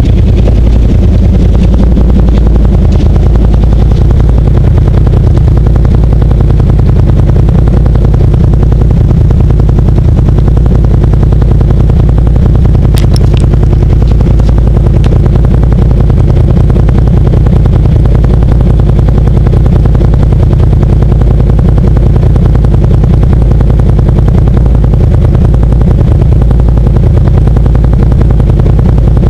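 Can-Am Outlander XMR ATV engine idling steadily while the machine stands still, with water rushing through a breached beaver dam behind it.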